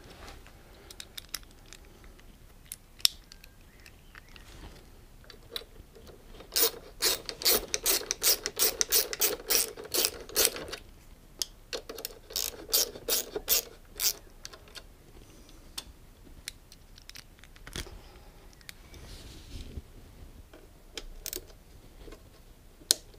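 Hand ratchet driver clicking as 5 mm bolts on a motorcycle pannier mounting frame are tightened. It comes in two runs of quick clicks, a little over a quarter of the way in and again around the middle, with odd single clicks between.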